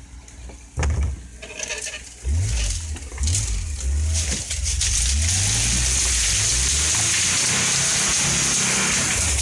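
Land Rover engine working at low revs, its pitch rising and falling, while bush branches scrape and swish along the bodywork as the vehicle forces through dense scrub. A loud knock comes about a second in, and from about four seconds in the brush scraping turns into a continuous loud rushing.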